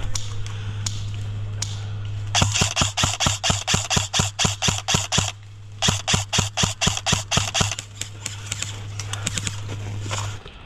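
Airsoft electric gun firing in two rapid strings at about six shots a second, the first about three seconds long and the second about two, then a few scattered shots. A steady low hum runs underneath and stops near the end.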